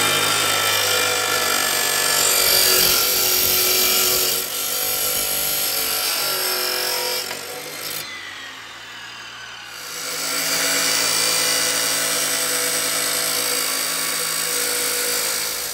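Abrasive chop saw cutting steel stock: the motor runs at full speed while the wheel grinds through the metal. About halfway through it winds down, then starts up and cuts again, stopping near the end.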